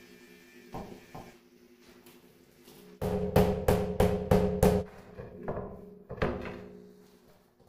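Rubber mallet knocking granite countertop pieces down into their mortar bed. A few light taps come first, then a quick run of about seven knocks about three seconds in, each with a short ringing tone, then a few more scattered taps.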